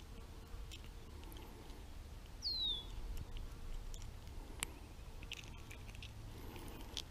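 Faint scattered clicks and handling rustles as pliers work a swallowed hook out of a bullhead's mouth. One short falling bird chirp about two and a half seconds in.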